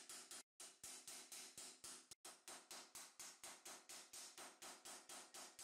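Light hammer blows on 1.5 mm mild-steel gauntlet plate resting on a steel stake, about five a second, each with a short metallic ring. There are brief pauses about half a second and two seconds in.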